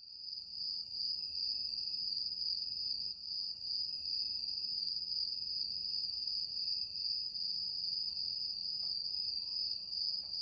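A continuous, steady high-pitched insect trill over a faint low hiss.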